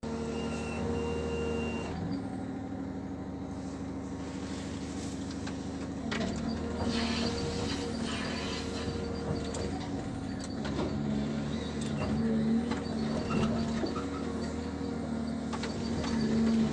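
Motor of a small remote-controlled machine running with a steady hum that changes pitch a few times as it is worked, with scattered clicks and knocks.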